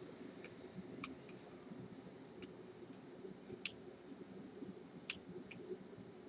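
Faint, irregular light clicks of a hook pick working a security pin in an Abus disc padlock's pin-tumbler cylinder under tension, about eight clicks scattered through a few seconds.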